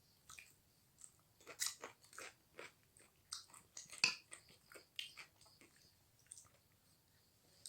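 A person chewing and biting food close to the microphone: a run of irregular short mouth clicks and smacks, loudest about a second and a half in and again about four seconds in.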